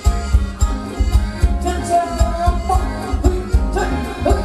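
Live band playing Thai ramwong dance music loudly, with a steady drum beat under a melody line.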